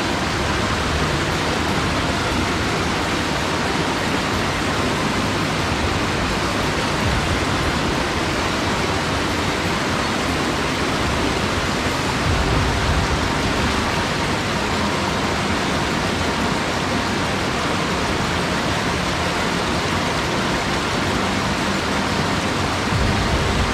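Steady rush of a mountain headwater stream, an even hiss of flowing water, with a brief low rumble about halfway through.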